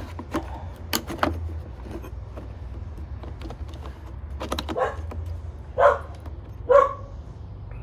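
Small plastic clicks and taps as a car door's window switch is fitted back into place, with a dog giving two short barks about six and seven seconds in over a steady low hum.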